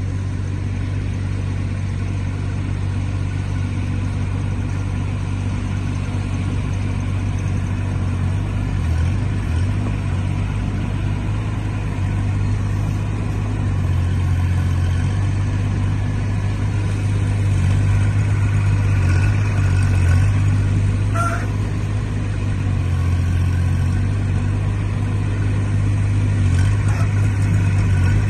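Kubota diesel engine of a WOLF WE15 mini excavator running steadily, its drone swelling at intervals as the hydraulics load it while the arm and bucket dig. There is a single short clank about two-thirds of the way through.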